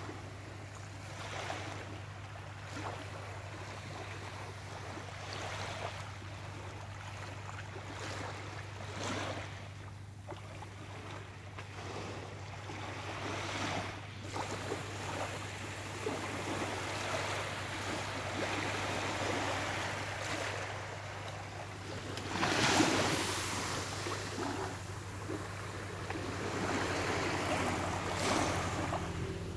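Small, gentle waves lapping and washing up on a sandy shore in repeated soft surges, the largest wash about 23 seconds in, with a steady low hum underneath.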